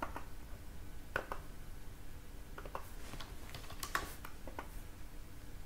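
Scattered clicks of computer keys and a mouse, a few single clicks and then a quick run of them around the middle, over a faint steady hum.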